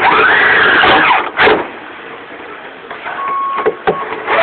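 Power drill driving a screw into a slide-out mounting bracket: the motor whines up in pitch, holds for about a second, then winds down. A short burst follows, and a quieter steady whine comes near the end.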